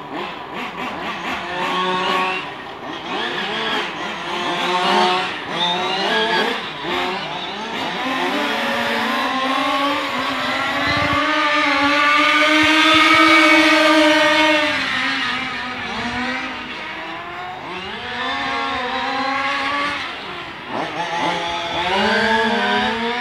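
Engines of small race cars revving up and down as they lap a circuit. Near the middle, one passes close, getting louder and higher in pitch, then falling away.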